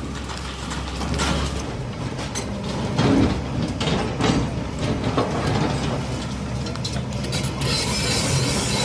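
Bulldozer at work on a demolition: a steady low engine rumble with repeated metallic clanks and knocks.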